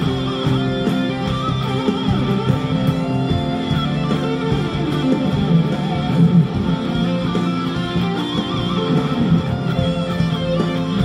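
Electric guitar playing improvised melodic lead lines, with some held, wavering notes, over a backing track of steady band accompaniment.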